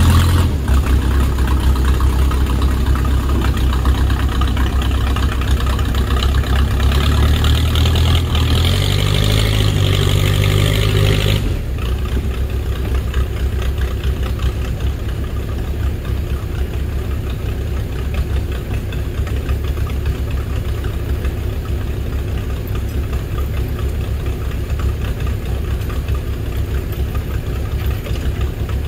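Heavy-equipment engine running hard, rising in pitch about seven seconds in, then dropping suddenly to a lower, steady idle about eleven seconds in.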